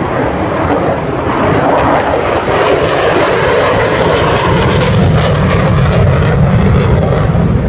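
Military jet's engine roar as it flies past overhead, building steadily and loudest in the second half.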